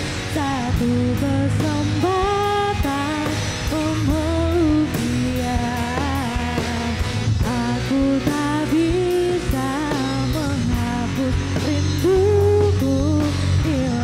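A rock band playing live: a female lead vocal sung over electric guitars, electric bass and a drum kit with a steady beat.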